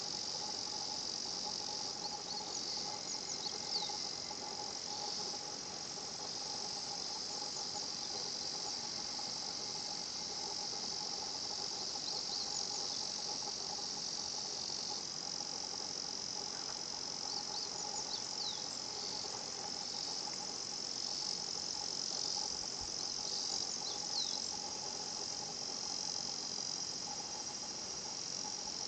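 Higurashi cicadas (Tanna japonensis) calling in chorus: repeated 'kana-kana-kana' phrases of quick falling trills come and go in clusters over a steady high insect drone, with a faint steady lower tone underneath.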